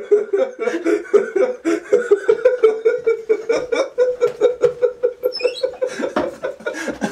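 Sustained, continuous laughter: a fast run of quick, even 'ha-ha' beats.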